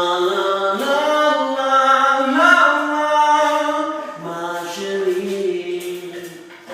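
A man singing unaccompanied in long, drawn-out notes, sliding up in pitch about a second in and again past the middle, then trailing off near the end.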